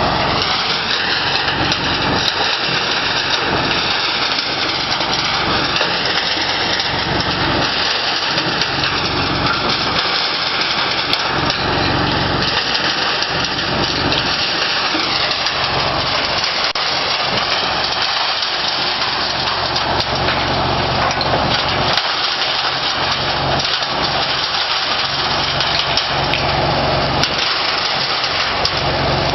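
Grass and straw cutter running with material going through it: its electric motor drives the chopping blades and the blower that throws the cut material out of the discharge chute. A steady, loud mechanical noise with a whine that drifts slightly up and down in pitch.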